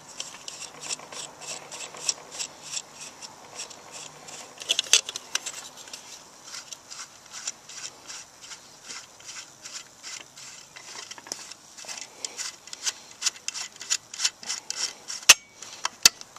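Small metal parts of a sheet-metal stove clicking and scraping as threaded studs and nuts are worked loose by hand: a quick, uneven run of light ticks, several a second, with a few sharper clicks near the end.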